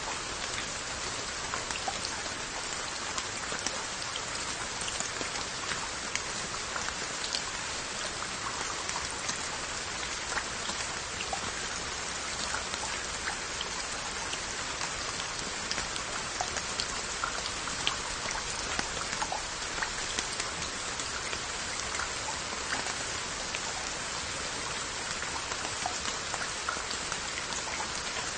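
Steady rain falling on glazed earthenware onggi crocks and their lids: an even hiss of rainfall with many small, separate drop ticks on the pottery.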